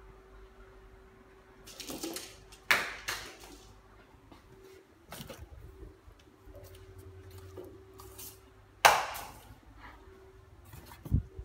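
Sharp knocks and clatters of small cat toys falling from a wall shelf as a Siamese cat knocks them off, the two loudest about three and nine seconds in. A dull low thump comes near the end.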